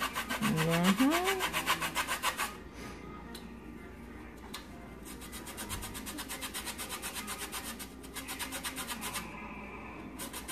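A lime rubbed quickly back and forth on a stainless steel box grater to zest it, a fast run of rasping scrapes. The scraping is loudest for the first couple of seconds, then goes on more softly.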